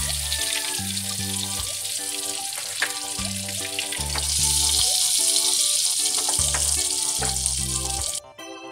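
Butter sizzling in a hot oiled frying pan, over background music with a steady bass line. The sizzle cuts off suddenly near the end.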